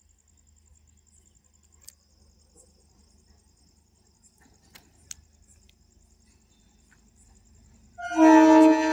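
Crickets chirping faintly and steadily, then about eight seconds in the approaching DEMU train's horn starts sounding loudly, a chord of several tones held.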